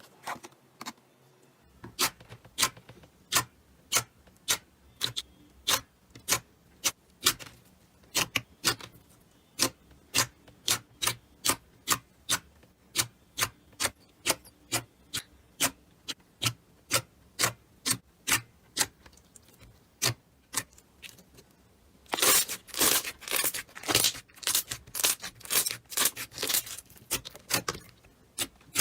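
Slime being pressed and squeezed by hand, giving a regular series of sharp clicking pops, about two a second. Near the end the pops come faster and louder, into a crackling run.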